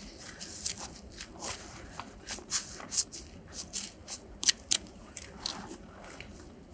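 Gloved hands scraping and rustling at the gap along the bottom log of a log wall, stuffing caulking into the crack: an irregular run of short, scratchy strokes, a couple of them sharper and louder a little past the middle.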